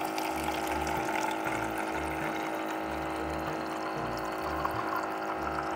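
Water running steadily into a container as it is filled, over background music with held notes and a pulsing bass.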